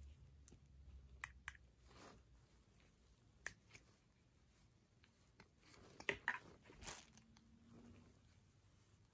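Faint handling noises from a smartwatch and its silicone strap being taken off and put on: a scattering of small clicks, a tight cluster of them about six seconds in, and a couple of soft swishes.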